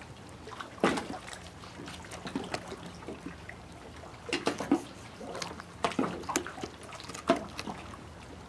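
Fillet knife cutting the head off a flounder on a cutting board: a run of short, irregular clicks and knocks as the blade works through the fish and against the board. The louder ones come about a second in and from about four to seven and a half seconds.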